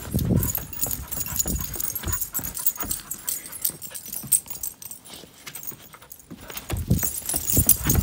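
Two dogs chasing each other on bare dirt: quick irregular paw thuds and scuffs with dog play noises, loudest at the start and again near the end.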